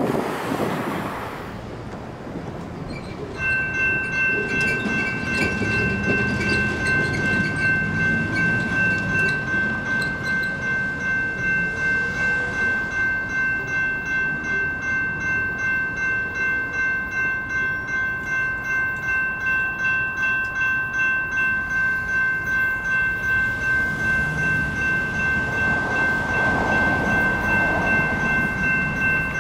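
Railroad crossing's GS Type 2 electronic bell starting to ring about three seconds in and then ringing steadily with an even pulse, the crossing activated for an approaching train. A low rumble runs underneath.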